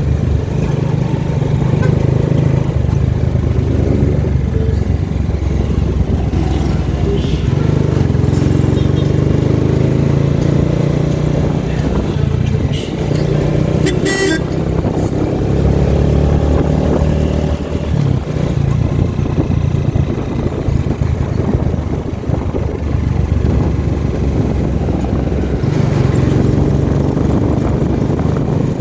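Vehicle engine running steadily on the road, with a short, sharp higher sound about halfway through.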